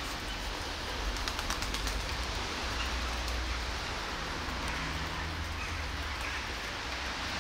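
Steady rain falling on wet pavement, with a few faint clicks between one and two seconds in and a faint low tone for about a second past the middle.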